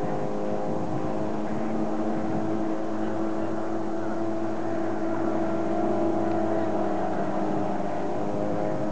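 Deck-mounted engine of a flat pontoon ferry running steadily, a constant, even hum.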